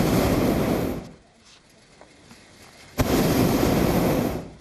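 Hot-air balloon's propane burner firing in two blasts: a roar that cuts off about a second in, then starts again suddenly about three seconds in and runs for about a second and a half.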